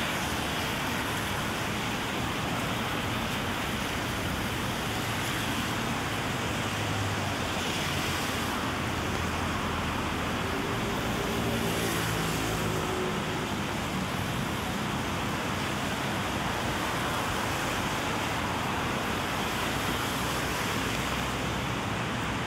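Steady hiss of rain falling on a wet city street, mixed with traffic noise; a low engine hum comes and goes around the middle.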